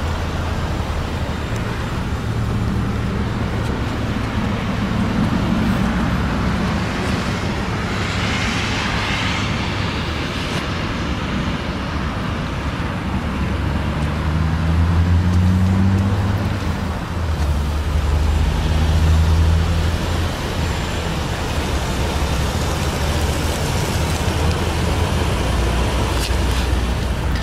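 Steady low drone of motor vehicle engines with road-traffic noise. The drone shifts in pitch a few times in the middle.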